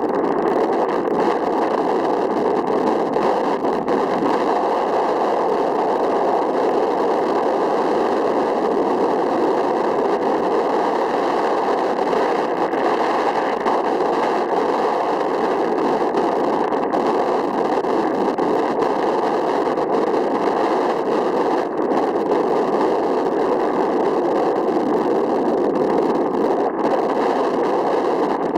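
Steady rushing noise with a faint hum of several steady tones running through it, unchanging throughout.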